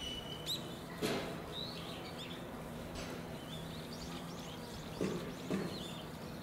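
Small birds chirping in short high calls throughout, over a steady low hum. A sharp knock sounds about a second in, and two more short thuds come about five seconds in.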